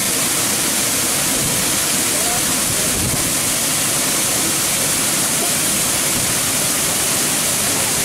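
Waterfall pouring from a rock ledge into the water below: a loud, steady rush of water with a strong hiss.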